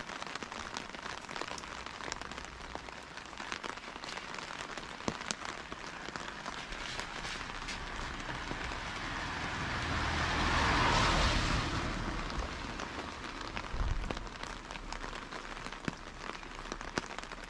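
Steady light rain with many small drops ticking. About ten seconds in, a car passes on the wet road: its tyre hiss swells and then fades.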